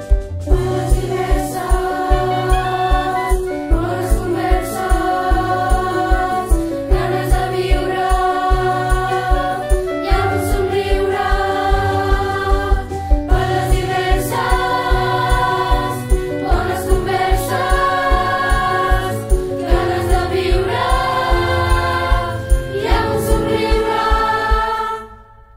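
A choir of young voices sings a song in Catalan over an instrumental backing with a steady beat. The music fades out near the end.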